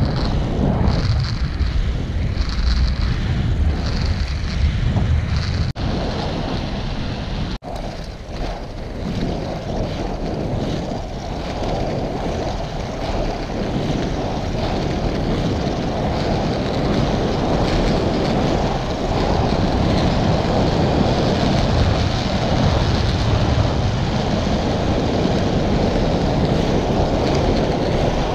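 Wind buffeting the microphone and the steady hiss and rumble of inline skate wheels rolling on asphalt. The sound drops out briefly twice in the first eight seconds.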